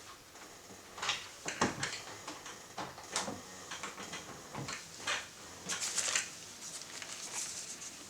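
A BNC cable and its metal connector being handled and moved between oscilloscope ports: scattered small clicks, knocks and scrapes.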